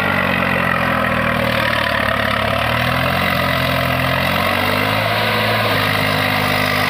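Swaraj diesel tractor engine running under load as it hauls a loaded trolley through deep mud ruts; its note sags a little and then picks up again about five seconds in.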